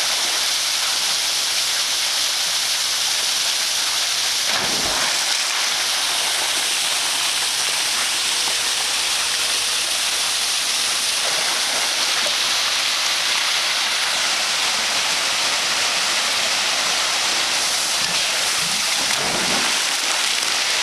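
Steady rush of running water at a pool, with a brief low thump about five seconds in.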